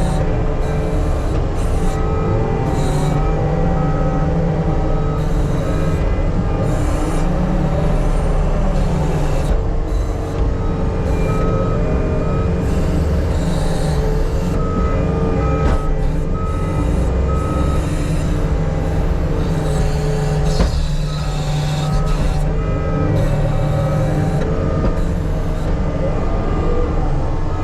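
Heavy earthmoving machine's engine running steadily, with its backup alarm beeping in several spells of regular beeps as it reverses.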